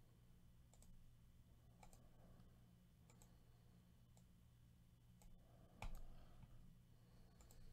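Faint computer mouse clicks, scattered about once a second over a low steady hum, with one louder click and a dull thump about three-quarters of the way through.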